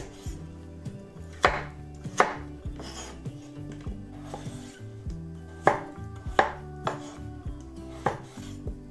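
Chef's knife chopping peeled raw potatoes on a wooden cutting board: irregular sharp knocks of the blade striking the board, about five loud ones with softer cuts between.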